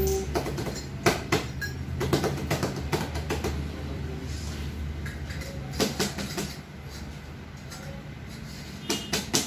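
Metal drum-stand hardware being handled and fitted together: irregular clicks, clacks and knocks of the chrome parts, with plastic wrapping rustling. The knocks come in clusters, about a second in, around two to three seconds, near six seconds and just before the end.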